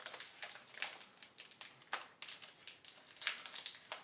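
Foil booster-pack wrapper crinkling in quick, irregular crackles as the pack is opened and handled.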